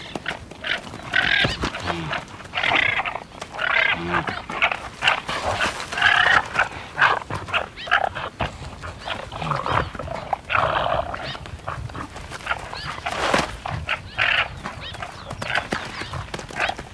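Male guanacos fighting, giving many short, harsh, high-pitched calls one after another, with sharp clicks among them.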